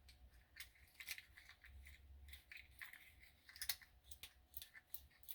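Faint, irregular light clicks and ticks of small metal parts being handled: a car door lock cylinder with its tumblers and key. The loudest click comes a little before the four-second mark.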